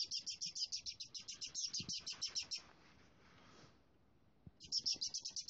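Least weasel chattering: a rapid run of short, high-pitched chirps, about eight a second. Partway through it breaks off, with a fainter breathy hiss in the pause, then starts again. This is the weasel's defensive scolding at a cat.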